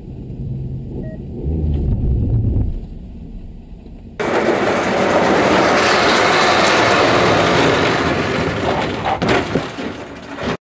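Car on a test track: a low road rumble heard from inside the cabin, then an abrupt switch about four seconds in to a loud steady rush of wind and tyre noise from outside as the car brakes toward a soft target car. A few knocks come just after nine seconds, and the sound cuts off suddenly near the end.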